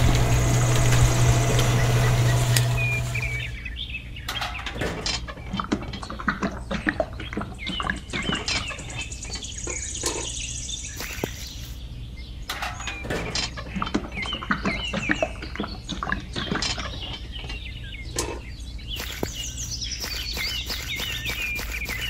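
Small motor of a miniature concrete mixer running with a steady low hum, cutting off about three and a half seconds in. Afterwards birds chirp over scattered light clicks and taps.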